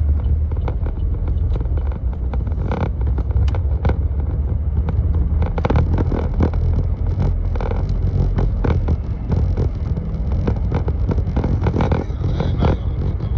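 Steady low road and engine rumble inside a moving car's cabin, with scattered light clicks and knocks.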